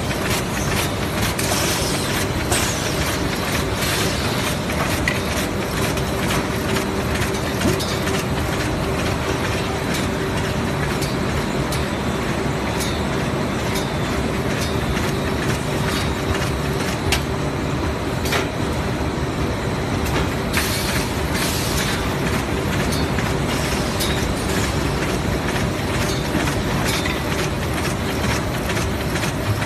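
Plastic bag cutting machine running: a steady hum with scattered clicks and a few short hisses.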